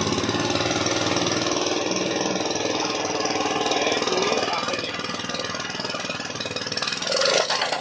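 Engine of a stamper (tamping rammer) running steadily with a fast, even knocking, louder again near the end.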